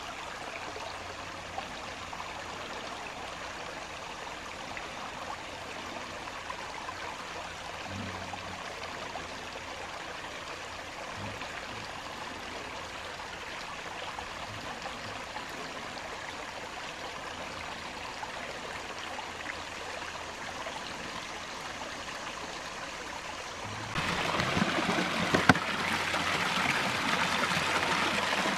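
Shallow rocky creek water trickling and running over stones in a steady babble, turning suddenly louder near the end.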